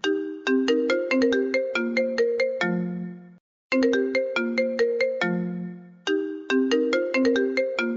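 iPhone ringtone melody ringing: a quick phrase of short notes that repeats, with a brief break about three and a half seconds in.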